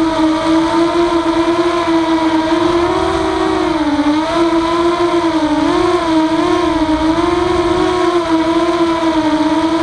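Walkera F210 racing quadcopter's brushless motors whining in flight, picked up by the onboard camera: one steady pitched hum whose pitch dips and rises several times as the throttle changes.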